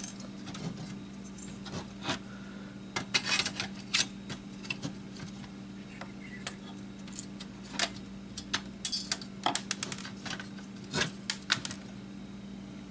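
Irregular clicks and clinks of metal and plastic parts being handled and knocked together as a PlayStation 2 console is taken apart with a screwdriver, over a steady low hum.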